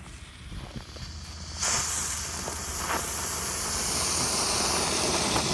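A pig-shaped firework fountain catches about a second and a half in and sprays pink smoke with a steady, loud hiss.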